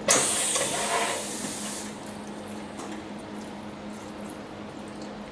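Water squirted from a squeeze bottle onto a hot, freshly TIG-welded broken bolt, hissing loudly for about two seconds as the metal is quenched, then settling to a quieter hiss.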